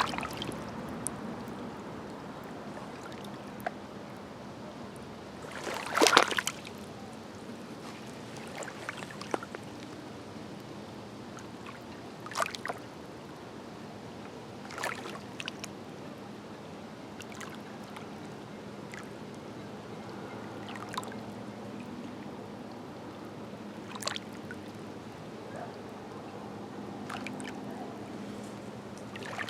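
Small waves from Green Bay lapping at the shore: a steady wash of water with scattered sharp splashes, the loudest about six seconds in and a few weaker ones after.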